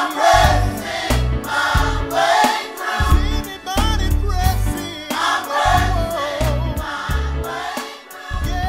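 Gospel choir singing with band accompaniment, a steady beat and heavy bass.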